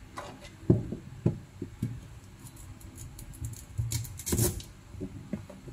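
Kitchen knife cutting sweet potato on a plastic cutting board: a few irregular knocks, with a louder clatter about four seconds in.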